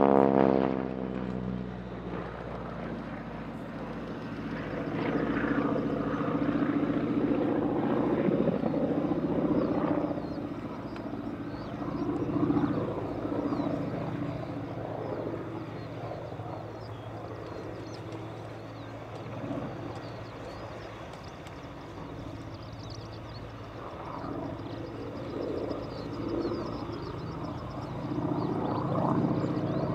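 North American SNJ-3 Texan's single radial engine and propeller droning during an aerobatic display, falling away within the first second, then swelling and fading as the aircraft manoeuvres farther off: louder about five to ten seconds in and again near the end.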